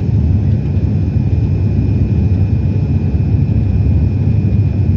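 Airliner cabin noise during descent: a steady low rumble of engines and airflow heard from inside the cabin, with a faint steady high whine.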